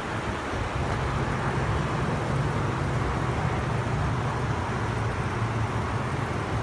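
Steady low hum of a vehicle engine running, over an even hiss of traffic noise.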